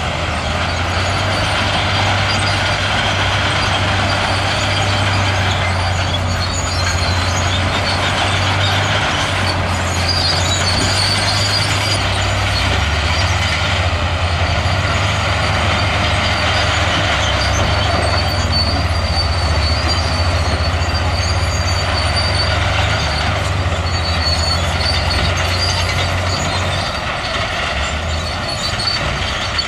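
Heavy diesel earthmoving machinery running under load: a steady low engine drone with metallic clatter. The engine note drops lower about twelve seconds in, and a thin high squeal comes in for a few seconds around the middle.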